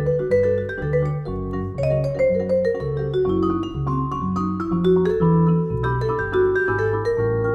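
Vibraphone played with four mallets, sounding rhythmic chords with a steady pulse, with a saxophone playing a melody line over it in a jazz duo.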